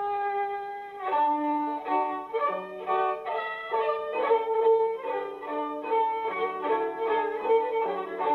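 Fiddle playing a tune: one long held note, then about a second in a quick run of short notes.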